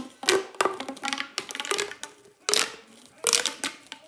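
Plastic pop tubes being stretched and squashed, giving a string of sharp pops and crackles, six or seven bursts at uneven intervals.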